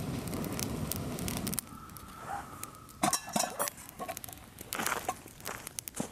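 Damp wood burning in a Firebox folding stove: a low rushing noise for about the first second and a half stops abruptly, then the fire crackles with scattered sharp pops.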